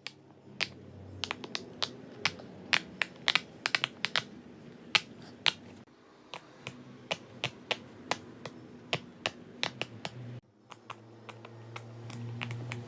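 Fidget toy clicking: many sharp, irregular clicks, several a second, with short pauses between runs. A low steady hum runs underneath and grows louder near the end.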